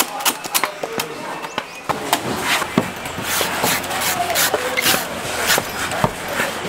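Large knife chopping coconuts: sharp strikes about four a second for the first second and a half, then slower, irregular knocks and scraping over a low steady hum.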